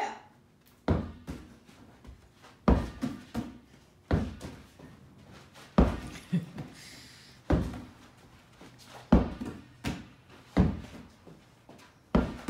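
Large inflatable exercise ball batted back and forth and bouncing on the floor: a hollow thunk about every one and a half seconds, eight loud ones in all, some followed by a lighter knock.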